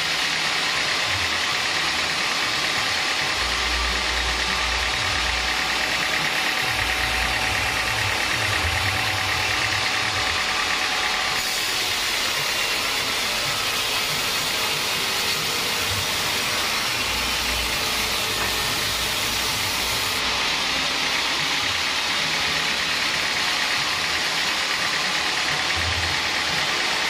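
Band sawmill running, its blade sawing lengthwise through a teak log: a loud, steady machine noise that turns harsher and hissier for several seconds in the middle.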